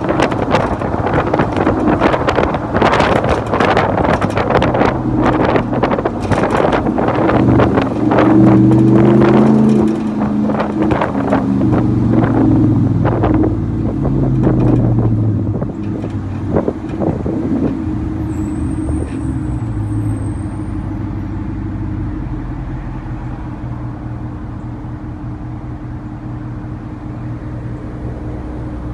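Ram Hemi V8 exhaust through a Magnaflow 12288 muffler and 5-inch tips while driving, picked up from the truck bed: the engine note climbs and drops through the first half, with heavy wind buffeting on the microphone. After about sixteen seconds the buffeting eases and the exhaust settles into a steady cruising drone.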